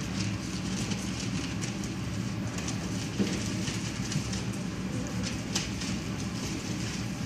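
Newspaper rustling and crinkling under a litter of three-week-old boxer puppies scrambling and wrestling on it, in small irregular crackles with a few sharper ticks, over a steady hum.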